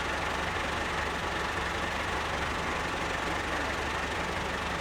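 An engine idling steadily, a constant low drone that does not change.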